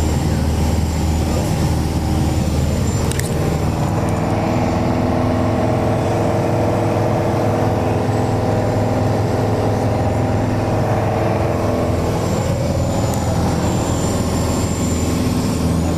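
A Mooney single-engine plane's piston engine and propeller drone steadily in flight, heard from inside the cockpit.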